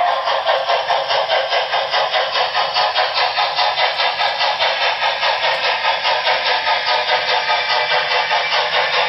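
Sound decoder of an HO scale Broadway Limited Paragon 4 Rolling Thunder GS-4 steam locomotive playing steady exhaust chuffs, about four to five a second, through the model's small speaker.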